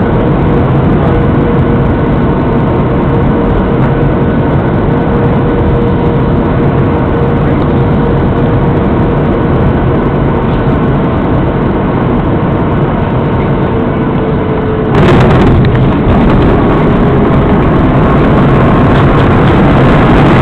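Jet airliner cabin noise from a Boeing 737 coming in to land: a steady rush of engine and airflow noise with a faint, slowly sinking whine. About fifteen seconds in the noise jumps suddenly louder and brighter as the plane touches down, and it stays loud as the jet rolls out on the runway.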